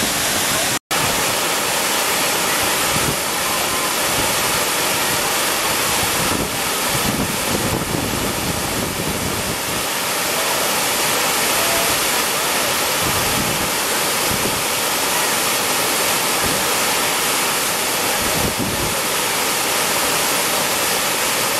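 Steady rushing of water pouring over a low check-dam cascade on the Kaveri river. The sound cuts out for an instant about a second in.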